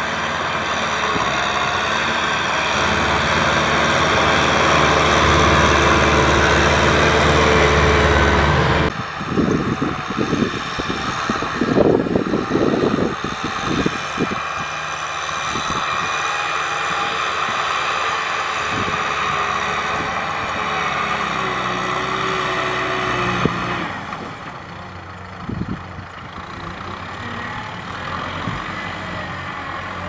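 Kubota M6040SU tractor's four-cylinder diesel engine running steadily under load while pulling a disc plough through the field. The engine sound drops abruptly about nine seconds in. A few seconds of irregular knocks and clatter follow, and the sound drops again about two-thirds of the way through.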